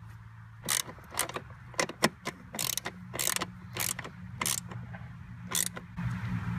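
A screw being tightened with a hand tool to fasten a plastic vacuum reservoir in a car's engine bay: about a dozen short, sharp strokes at an uneven pace, starting about a second in.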